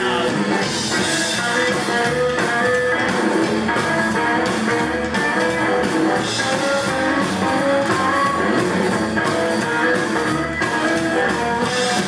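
Live rockabilly band playing: electric guitar, upright double bass and drum kit, with the drums keeping a steady beat under the guitar's moving lines.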